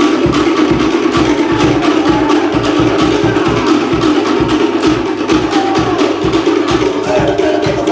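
Tahitian drumming for a fast ʻōteʻa dance: sharp wooden strikes on toʻere slit-log drums with deep drum beats, keeping a fast, even rhythm of about three or four strokes a second.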